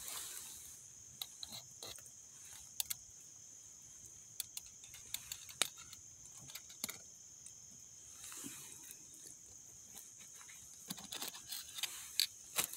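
A small wood cooking fire crackling with sparse faint pops, and light metallic clinks and scrapes as a metal camp pot is lifted off the fire and set down.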